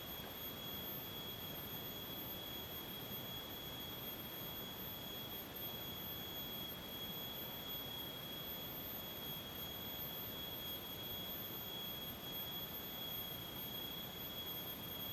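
A steady, unbroken high-pitched whine on one pitch, over a faint even hiss.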